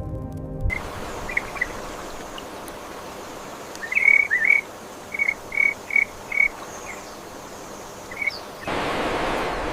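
Music cuts off just under a second in. Short, high chirps follow over a steady outdoor background, with a quick run of about five evenly spaced chirps midway. A louder, even rush of noise starts near the end.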